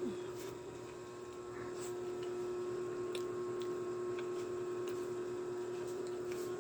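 A person chewing soft food with the mouth close to the microphone: scattered faint clicks of lips and tongue. Under it runs a steady low hum.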